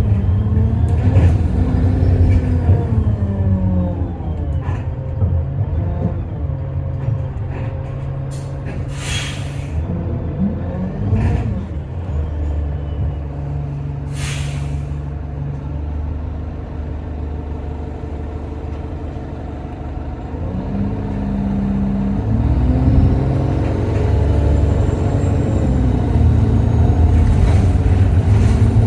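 Alexander Dennis Enviro 200 bus engine running, its pitch shifting at first, then settling to a steadier, quieter note. Two sharp air-brake hisses come about nine and fourteen seconds in. Near the end the engine note climbs and grows louder again as the bus pulls away.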